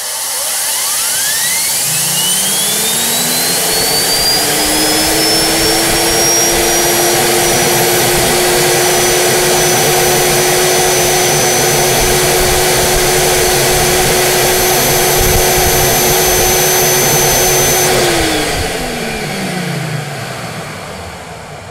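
Holset HE500VG variable-geometry turbocharger spun up by air on a turbo test stand during a minimum-flow test. A rush of air with a high whine rises over the first several seconds, then holds steady at about 30,000 rpm. Near the end the air is shut off and the whine falls away as the rotor spins down.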